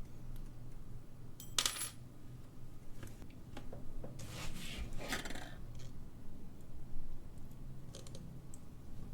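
Small metal parts of a vintage alarm clock movement clinking and clicking against a hard surface as the movement is taken apart. There is a sharp click about one and a half seconds in, a longer clatter around four to five seconds, and a few light clicks near the end.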